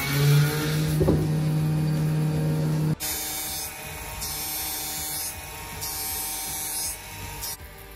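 Jewelry CNC milling machine running a horizontal diamond-cut head on a gold bangle. For the first three seconds there is a steady hum with a higher whine. The sound then drops suddenly to a quieter running sound, with a high hiss that comes and goes in stretches of about a second as the head cuts flat lines.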